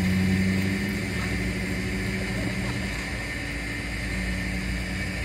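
An engine running steadily at idle, a low hum that drops in level about a second in and carries on more quietly.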